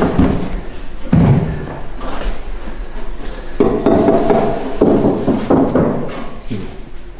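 A car door being handled: knocks and clunks, with a heavy thud about a second in and a further spell of clattering a little past the middle.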